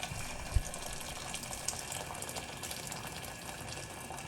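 Boiling water being poured steadily from a kettle into a cooking pan, with a single low knock about half a second in.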